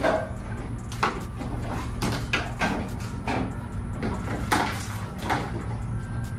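Irregular clicks and knocks of plastic and metal parts being handled and fitted at the front bumper of a 1988 box Chevy, about ten knocks at roughly one every half second to a second, over a faint steady hum.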